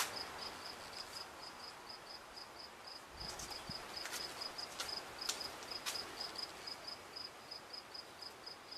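A cricket chirping steadily in short, evenly spaced high-pitched pulses, about four a second. A few sharp clicks come through around the middle.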